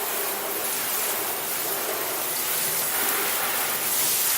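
Water running and splashing steadily as something is rinsed under it, a continuous rushing hiss that grows slightly louder near the end.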